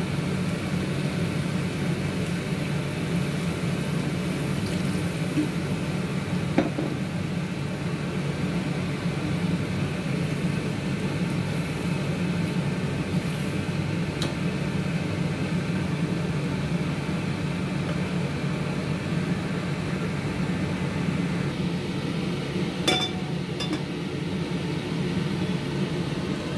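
A steady low machine hum in a kitchen, with a few light clinks of a wok and its ceramic lid; the sharpest clink comes near the end.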